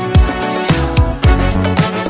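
Background music with a steady funk-style beat, about two bass drum hits a second.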